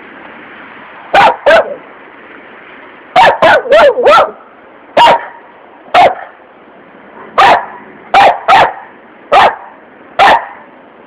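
West Highland white terrier barking: about a dozen short, sharp barks, some single and some in quick runs of two to four.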